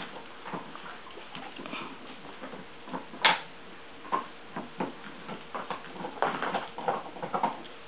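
Miniature Pinscher mix puppy playing with a toy on a dog bed and tile floor: scattered soft taps and rustles, with one sharper click about three seconds in.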